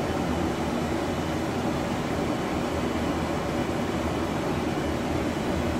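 Steady flight-deck noise of an Airbus A330 on approach: an even rush of air and ventilation hum, heaviest in the deep range, with no distinct events.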